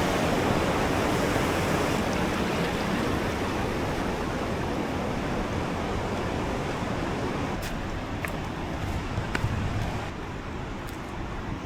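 Waterfall's rushing water, a steady wash of noise that eases slightly and drops a little about ten seconds in, with a few faint clicks near the end.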